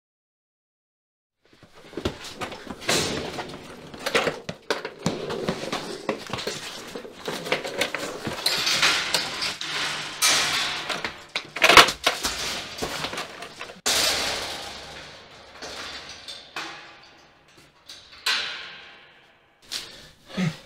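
A scuffle: clothes rustling and feet shuffling, with a run of knocks, bangs and rattles. The loudest bang comes about twelve seconds in. It starts after a second and a half of silence.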